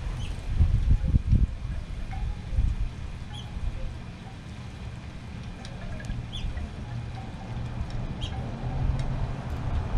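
Outdoor wind buffeting the microphone as an uneven low rumble, with a few faint, short bird chirps now and then.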